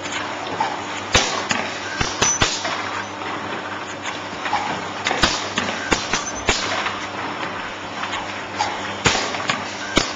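Gluing machine for corrugated cardboard crash-lock-bottom boxes running: a steady mechanical clatter with sharp clacks from its moving parts at irregular intervals, several in quick pairs.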